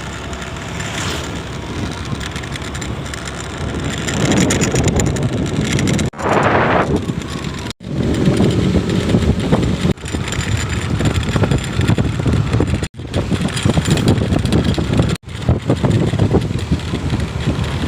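Bus passing at speed on a highway: a rough engine and road rush swells about four seconds in and surges loudest a couple of seconds later. The sound cuts out suddenly for an instant several times.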